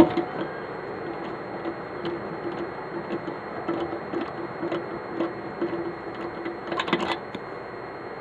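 Hand-cranked steel speed-brace lug wrench spinning a lug nut on a truck wheel stud: a sharp metal clack as the socket goes on, then light, fairly regular ticking and rattling as the crank turns, with a quick flurry of clicks near the end.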